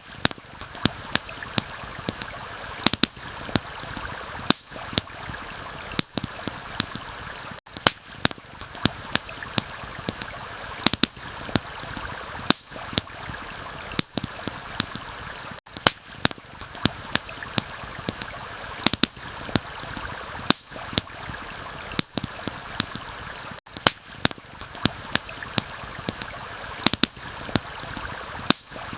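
Layered ambience of a stream and rain: a steady rush of water with frequent sharp pops and crackles from a campfire, several a second. Brief dips in the sound recur about every eight seconds.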